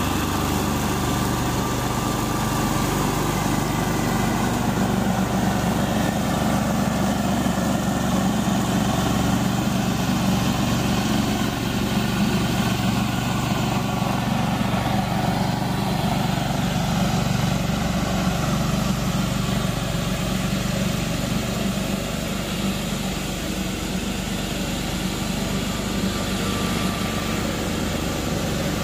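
Walk-behind brush mower's engine running steadily under load as it chops through tall, overgrown grass, a low even hum that grows a little fainter past the middle as the mower moves away.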